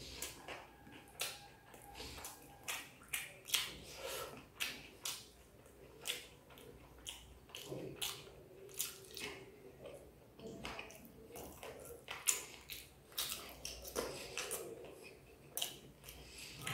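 Close-up eating sounds: wet chewing and lip smacks, an irregular run of short, sharp clicks a few times a second.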